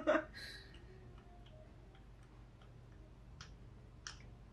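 Spark plug socket wrench turning the last spark plug out of a Honda B18C1 cylinder head: a few faint, irregular clicks, the two sharpest near the end, after a short voice sound at the start.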